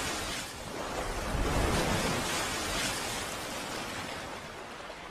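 Rushing, surf-like noise sound effect of an animated logo sting, swelling about two seconds in and easing off toward the end.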